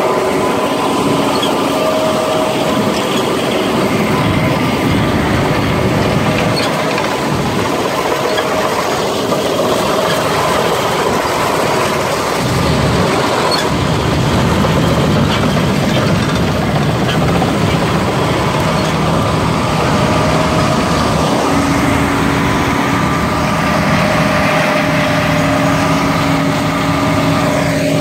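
John Deere combine harvester running: a loud, steady drone of engine and machinery, with a few steady whining tones held through it.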